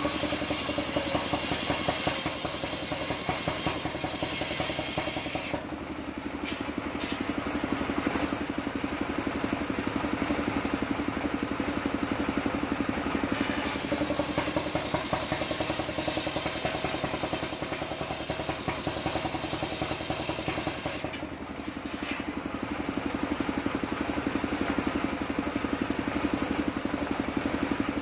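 Engine-driven circular saw ripping a waru log lengthwise. The engine runs steadily with a fast pulse, under the hiss of the blade cutting through the wood. The cutting hiss drops away briefly twice, about a quarter of the way in and again about three quarters in.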